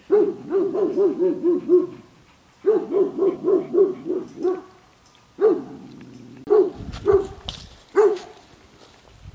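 A dog barking: two quick runs of about eight barks each, then four single barks spaced roughly a second apart.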